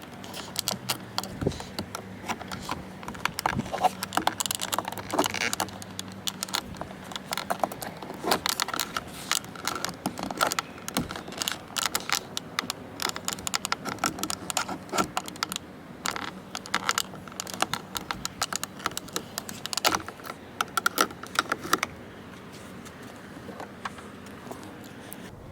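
Rapid, irregular clicking and rattling of small hard objects being handled, which stops a few seconds before the end.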